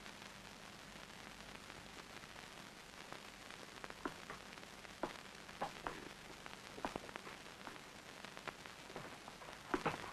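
Faint crackling and popping of a burning thatched roof over a steady hiss, the pops scattered at first and coming thicker near the end.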